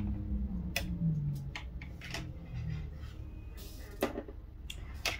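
Scattered light clicks and taps from hands handling the nail swatches and curing lamp, over a low steady hum.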